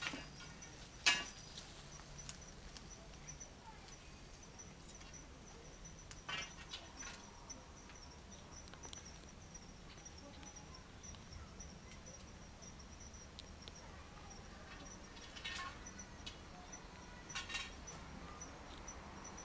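Faint outdoor ambience: an insect trilling steadily in a high, rapidly pulsing tone over a low hum. A few brief clicks and rustles come about a second in, around six seconds in, and twice near the end.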